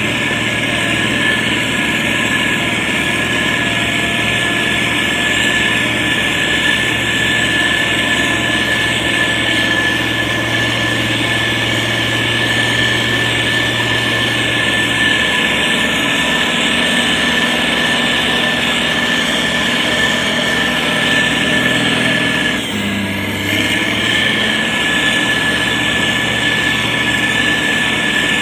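Diesel engine of a SANY STG190C-8S motor grader running steadily, with a constant high whine over the engine note. The engine note changes briefly about four-fifths of the way through.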